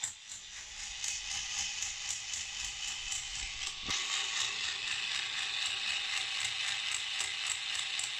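Toy electric drill running continuously, its motor and plastic gears giving a steady, rapid ratcheting whir as the spinning bit is pressed against a wooden spoon. A single sharp click about four seconds in.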